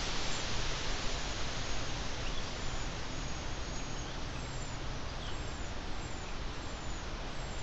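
Steady hiss of an outdoor wildlife camera's microphone, with a faint, thin, high bird call repeated about once a second, each note falling slightly in pitch.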